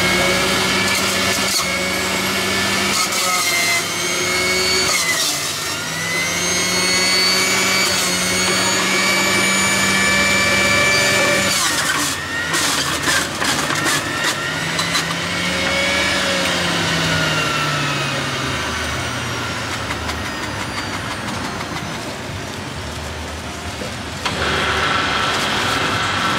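Electric centrifugal juicer's motor running, its pitch sagging and recovering again and again as carrots and fruit are pushed down the feed chute onto the spinning cutter disc. Near the end the sound steps up abruptly into a steadier whine.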